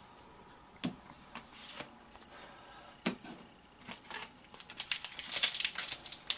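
Foil trading-card pack wrapper crinkling as it is handled and opened, dense from about four seconds in, after a couple of soft knocks from cards being set down.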